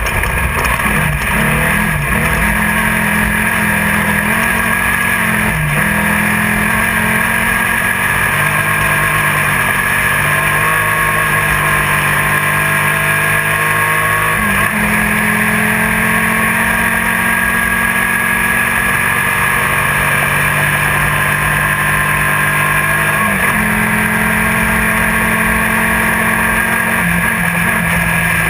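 Race buggy engine running hard at speed, heard from inside the car, its pitch holding and then jumping abruptly a few times as gears change, under a constant loud rush of noise.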